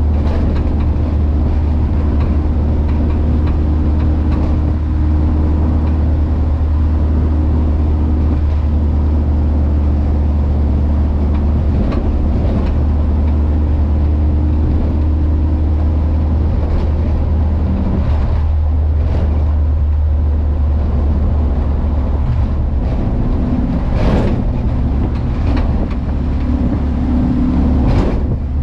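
VW Kombi van's engine running at a steady cruise while driving, a deep, even drone with road noise, and two brief sharp sounds near the end.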